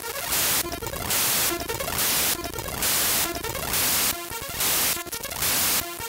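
Raw bytes of the Windows shell32.dll.mun system file played back as audio. Blocks of harsh static hiss, roughly one a second, alternate with quieter glitchy buzzing tones.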